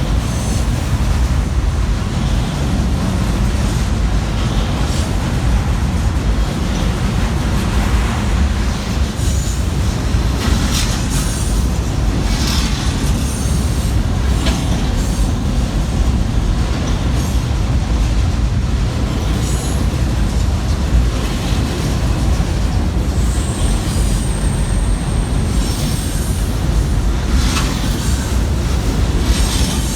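Long freight train rolling slowly past: a steady low rumble of the wagons, with wheels clacking over the rail joints and short high wheel squeals, one drawn out a little before the end.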